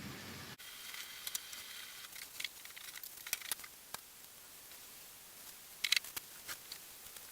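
Cabbage sautéing in butter and olive oil in a cast iron skillet, faint and irregular crackling and popping, with a brief cluster of louder pops about six seconds in.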